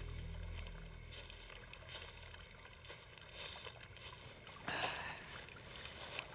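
Background music fades out in the first second. Then faint outdoor ambience follows, with scattered soft crackles and a brief louder rush about five seconds in.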